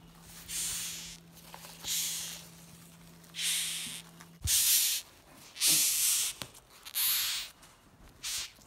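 Rhinoceros beetles hissing in a string of short bursts, about seven, each around half a second long and loudest in the middle of the run: the loud hiss these beetles make when disturbed.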